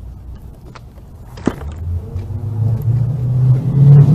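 A motor vehicle's engine running, growing louder and rising slightly in pitch over the second half. A single sharp click comes about one and a half seconds in.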